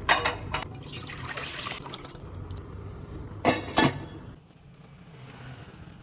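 Water pouring and splashing, with sharp clinks of kitchenware near the start and a pair of knocks about three and a half seconds in.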